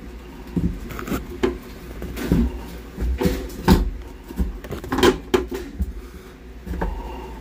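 Plastic knocks and clicks of a replacement ice-machine water pump assembly being handled and pushed up into its mount, an irregular string of sharp knocks, the loudest a little under four seconds in and again about five seconds in.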